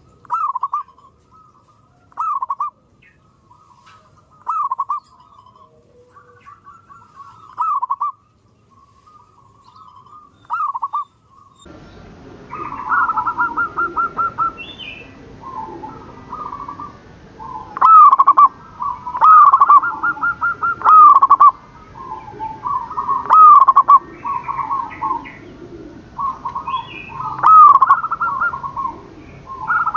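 Zebra dove cooing: short rolling phrases repeated every two or three seconds. About twelve seconds in the background noise rises abruptly, and the coos come louder and almost back to back.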